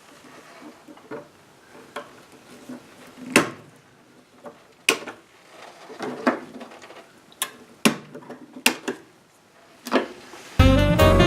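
Scattered sharp clicks and clinks of hand work with tools and wiring, irregular, about a dozen over several seconds. Near the end, jazz music with saxophone and drums starts abruptly.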